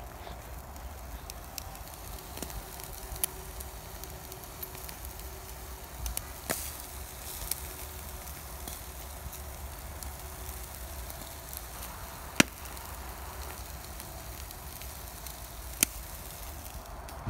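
Charcoal grill fire crackling under raw chicken and bread, with a few sharp pops, the loudest about twelve seconds in, over a steady low rumble.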